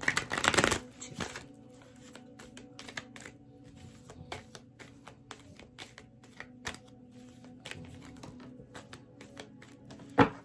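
A deck of cards being shuffled in a short, loud burst, then quiet clicks and taps as the cards are handled and drawn, with one sharp tap near the end.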